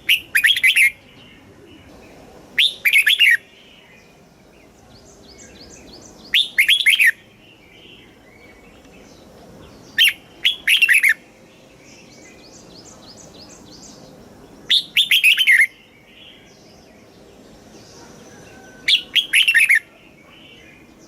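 Red-whiskered bulbul singing: a short, loud phrase of several quick notes about every four seconds, six in all, with softer twittering calls between them.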